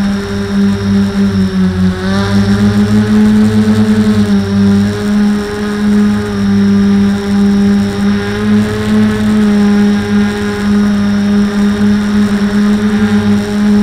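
Quadcopter's electric motors and propellers humming steadily close to the onboard camera, the pitch dipping and rising slightly as the throttle changes. A fast throbbing runs through the hum a couple of seconds in and again near the end.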